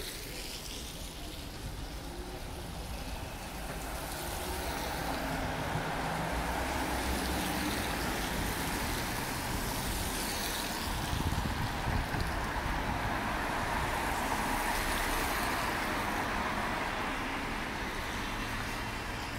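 Road traffic on a rain-wet street: tyre hiss and engine noise from passing vehicles, swelling over several seconds as traffic goes by and easing near the end, with a few low thumps in the middle.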